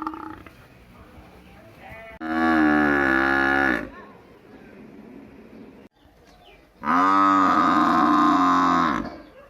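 Buffalo mooing: two long, loud calls a few seconds apart, each dropping in pitch as it ends.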